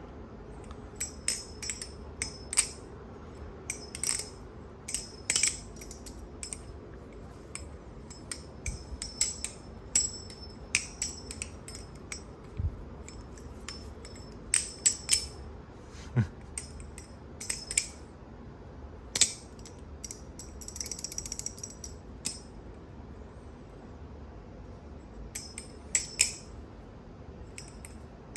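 Balisong (butterfly knife) being flipped: irregular sharp metallic clicks and clacks as the swinging handles strike each other and the blade, with a brief rattling stretch past the middle and a short lull near the end.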